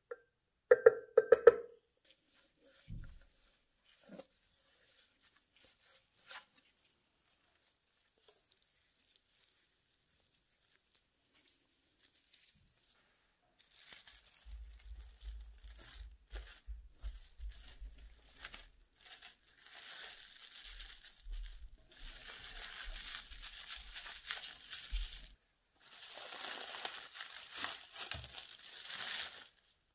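Clear plastic cling film crinkling and rustling in long bursts as it is wrapped around a paste-coated brass oil can, loudest near the end. Near the start there are a few short ringing clinks of a metal spoon against the brass can.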